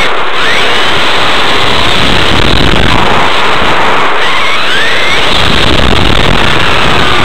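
Kyosho Inferno GT RC car driving, heard from a microphone mounted on the car: a loud, steady rush of tyre, drivetrain and wind noise. Through it, the whine of the Novak HV Pro 5.5 brushless motor rises and falls several times as the car speeds up and slows through turns.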